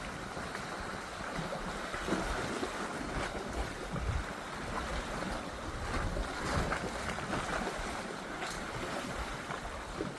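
Wind buffeting the microphone over the rush of water around a boat under way, with a steady low rumble.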